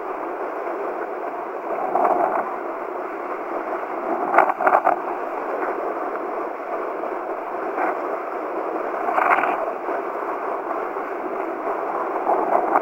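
Steady rush of wind and water as a kiteboard planes fast over choppy water in strong wind. A few louder slaps of the board on the chop come about two, four and a half, and nine seconds in.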